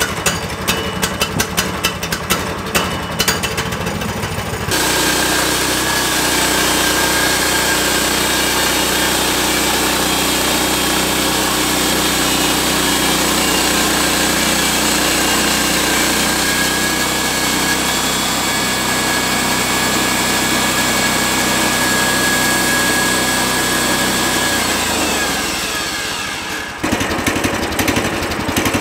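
Gas engine of a bandsaw sawmill idling, then throttled up about five seconds in and running steadily while the band blade cuts through a pine log to square it. Near the end the engine note falls as it winds down, and it drops back to idle.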